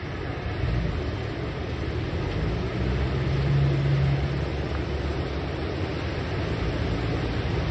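Steady rush of surf with the low hum of a ski boat's outboard engines under it, swelling about three to four seconds in.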